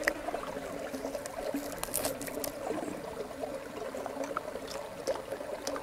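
Shallow river water trickling steadily over rocks, with a few faint clicks from chewing close by.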